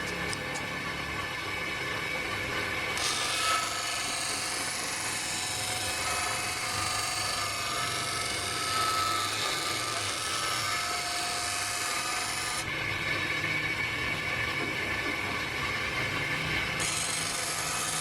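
Electric grinder running steadily while a steel scissor blade is ground and polished against it. A brighter hiss comes in about three seconds in and drops away again near thirteen seconds.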